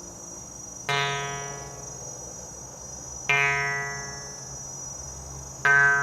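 A tuned instrument played slowly, one note at a time: three notes about two and a half seconds apart, each struck or plucked sharply, then ringing out and fading, in a meditative sound-bath passage.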